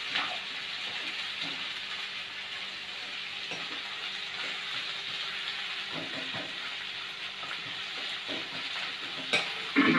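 Sliced onions sizzling in hot oil in a kadai on high heat, stirred with a steel spoon that scrapes and knocks against the pan now and then, with two louder knocks near the end.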